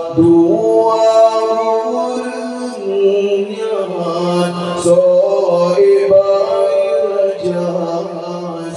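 A man singing an Acehnese qasidah solo into a microphone, in long held notes that step and slide from pitch to pitch in a chanted, melismatic line.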